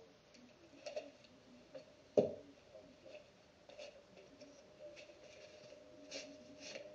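Packaging and a small box being handled: scattered soft clicks and rustles, with one sharper knock about two seconds in.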